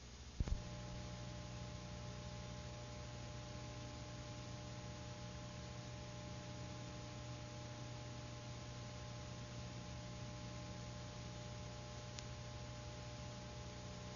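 Steady electrical hum with faint hiss on an otherwise empty soundtrack, with one short click about half a second in.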